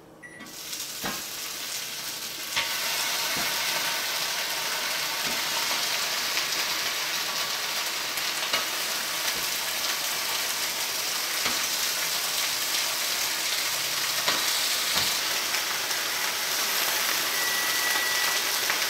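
Slices of Canadian bacon sizzling on a hot electric skillet. The sizzle starts as the first slice goes down and grows louder over the first couple of seconds as more slices are laid in, then holds steady, with a few light taps.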